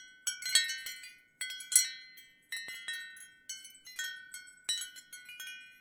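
Ceramic wind chimes knocking together in the wind: irregular clusters of strikes, each ringing on in several high tones, with the loudest clinks in the first two seconds.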